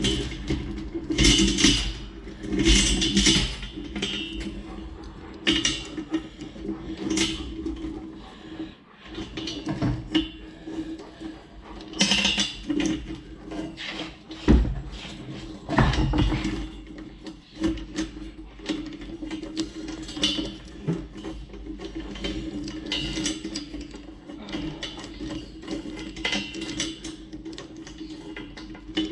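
Steel chain clinking and a ratchet chain binder clicking as it is cranked tight, with irregular metallic clanks and knocks against a steel bar, over a steady low hum. The binder is putting tension on the chain to pull a bent steel bar back straight.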